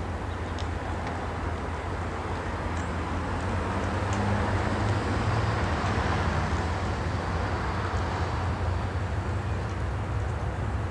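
Off-screen freight train rumbling steadily with a low diesel hum, swelling to a peak about six seconds in and then easing a little.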